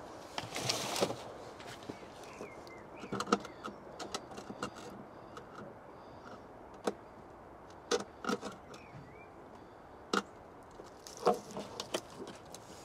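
Hands working on an EV wall charger unit and its cable: scattered sharp clicks and knocks of plastic and fittings being handled, with a brief rustle about a second in.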